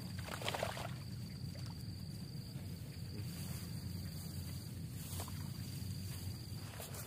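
A steady high insect drone over a steady low outdoor rumble, with a few brief rustling handling noises as a wet trap net is lifted and shaken, the loudest about half a second in.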